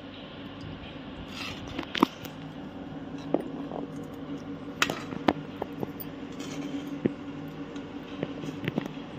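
A metal ladle scrapes and clinks against the pan and strainer as hot ghee and browned milk-solid residue are spooned and pressed through a cloth-lined strainer: scattered sharp clinks, about half a dozen, over a steady low hum.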